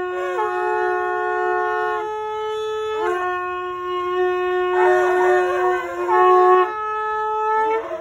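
Two ram's-horn shofars blown by two young boys: long held blasts on two slightly different pitches, overlapping and starting and stopping in turn. About five seconds in, one blast turns rough and rattly before steadying again.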